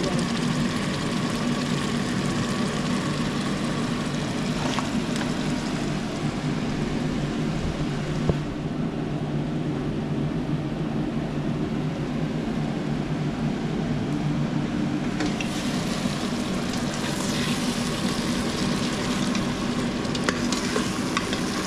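Chopped tomatoes sizzling in an electric pressure cooker's steel inner pot, with a metal ladle stirring and scraping against the pot, mostly near the start and the end. The sizzle goes quieter in the middle, and a steady low hum runs underneath.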